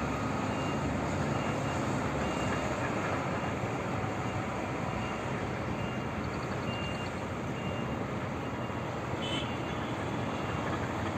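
Diesel engine of a loaded Cat 730 articulated dump truck running steadily as it drives off, with earthmoving machinery working. A reversing alarm beeps faintly at intervals.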